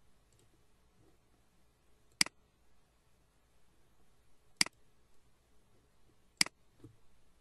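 Three sharp computer mouse clicks, a couple of seconds apart, as menu items and a dialog button are clicked.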